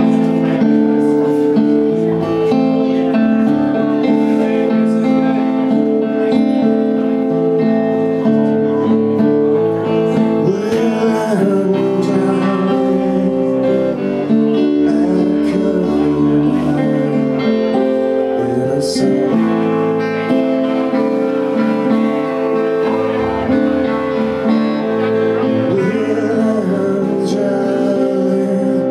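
Live band playing a song: strummed acoustic guitars over an upright bass, with a man singing.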